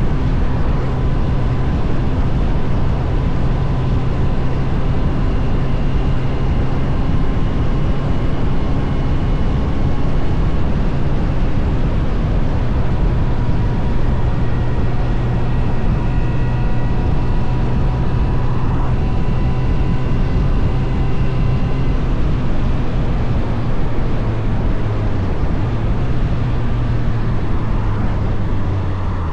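Suzuki GSF 600 Bandit's inline-four engine running steadily while riding, with a broad rush of wind and road noise; the engine note drops slightly near the end.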